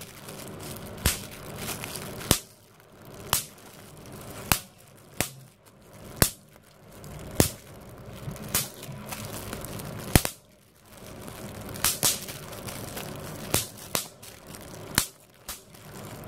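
Plastic bubble wrap being popped one bubble at a time between the thumbs: sharp pops about once a second, now and then two in quick succession, with the plastic crinkling between them.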